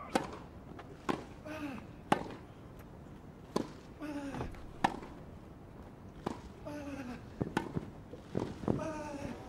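Tennis rally on a grass court: sharp pops of the ball off the racket strings and the turf, about every one to one and a half seconds, starting with the serve. Several shots come with a short grunt from a player.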